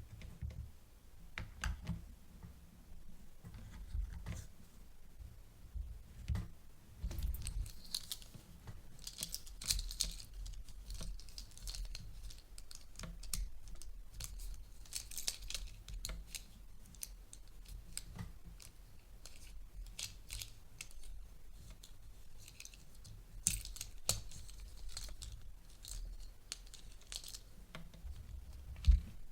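Toy packaging being torn open and crinkled, in irregular spells of rustling, with scattered light clicks and knocks from handling.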